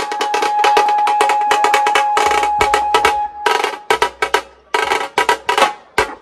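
A Maharashtrian banjo-party drum section, several players beating large snare-type drums with sticks, playing a fast, dense rhythm over a steady held high note. About three and a half seconds in the held note stops and the drums switch to separate, loud accented strokes, roughly three to four a second.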